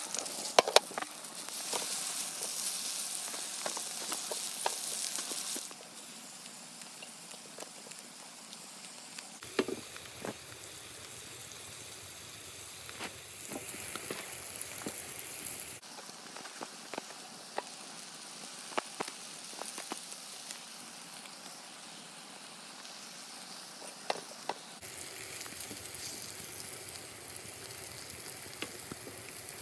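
Beef steaks sizzling in a frying pan, a steady hiss with scattered clicks and taps of a utensil on the pan. The hiss changes level abruptly a few times.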